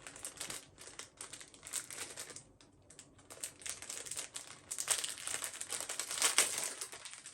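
Packaging crinkling and rustling as it is torn open and unwrapped by hand: irregular crackles, with a short lull about two and a half seconds in and a busier stretch near the end.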